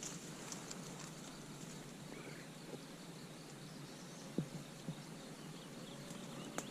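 Faint outdoor ambience with steady background noise, a brief bird chirp a couple of seconds in, and a few soft knocks in the second half.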